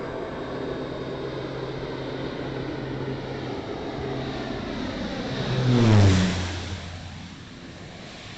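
Air Tractor AT-502 turboprop crop duster making a low pass: its engine and propeller drone builds to a peak about six seconds in, the pitch drops sharply as it goes by, and it fades away.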